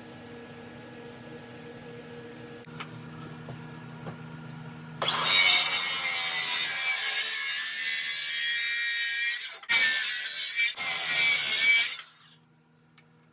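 Power tool grinding on an old axe: a harsh, hissing grind starts about five seconds in, drops out briefly twice, and stops near the end. Before it there is a low steady hum with a couple of light clicks.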